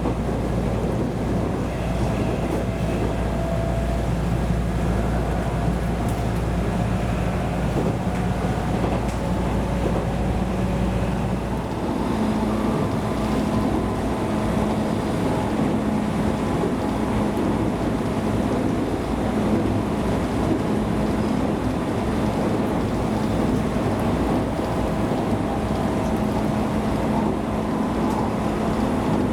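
Train running along the line, heard from inside the carriage: a steady rumble of wheels and running gear with a low motor hum that changes pitch about twelve seconds in.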